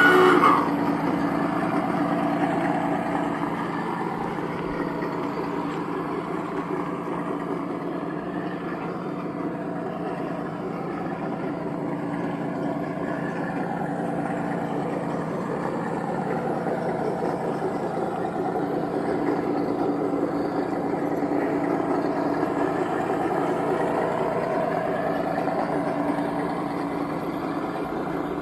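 Garden-scale model of the Rio Grande Southern Galloping Goose No. 7 railcar running along the track, giving a steady truck-like engine sound. A horn cuts off in the first half-second.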